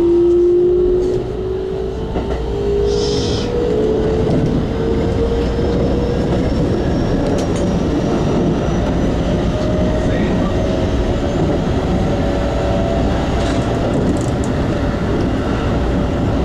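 Keikyu 2100 series electric train accelerating, heard from inside the driver's cab. Its traction motor whine rises in pitch over a steady rumble of wheels on rail, and a fainter whine keeps climbing slowly as speed builds.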